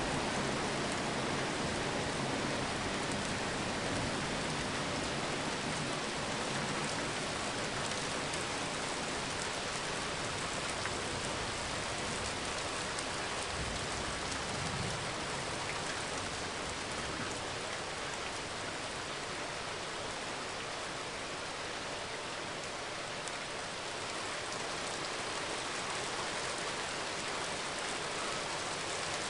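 Steady rain falling on a parking lot: an even, unbroken hiss.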